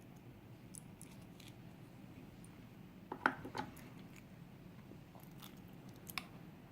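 Faint, scattered small metal clicks and taps from a pin-tumbler lock being taken apart by hand, with a short cluster about three seconds in and a sharper click near the end.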